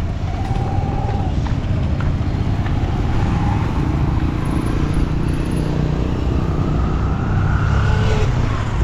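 Road traffic: motor vehicle engines running with a steady low rumble.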